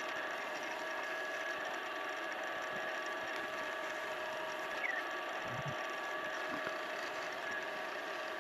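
Wood lathe running steadily, a constant hum of several steady tones, as micro mesh pads are worked over the spinning pen blank to smooth its superglue finish. A brief low thump a little past halfway.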